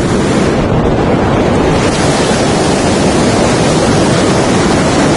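Ocean surf breaking and washing up the beach, a steady loud rush, with wind buffeting the microphone.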